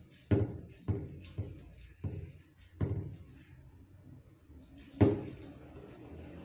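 Wooden kitchen cupboard door knocking against its frame as a cat paws and noses at it, trying to get it open: six knocks, five in the first three seconds and the loudest about five seconds in.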